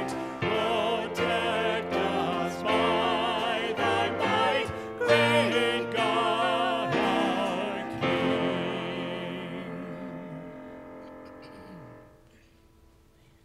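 Church music: singing with a wavering vibrato over held accompaniment, ending on a final chord that fades away about three-quarters of the way through, after which it is nearly silent.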